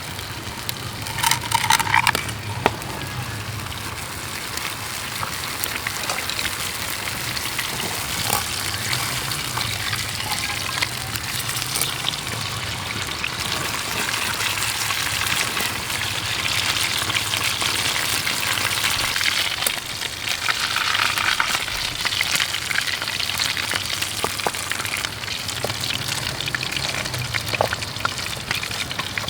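Steak sizzling in a hot pan: a steady crackling hiss. A short, louder sound stands out about two seconds in.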